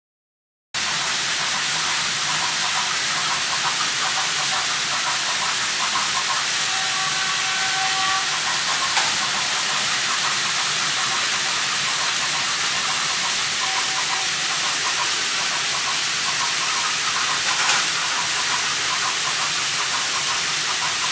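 Steam train sound effect: a steady hiss that starts about a second in, with faint pulsing and a few brief whistle-like tones.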